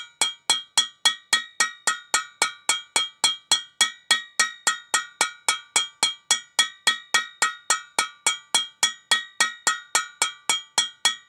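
Hammer tapping steadily around the outside edge of a steel steering knuckle, about four ringing metallic strikes a second, driving the knuckle down onto a new front wheel bearing.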